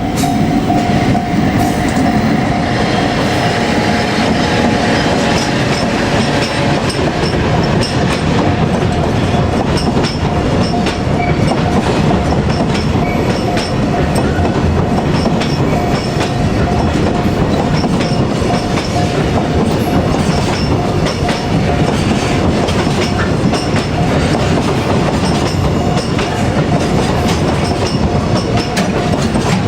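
Long container freight train rolling steadily past, its wagon wheels clacking over the rail joints, with a steady high tone running through it.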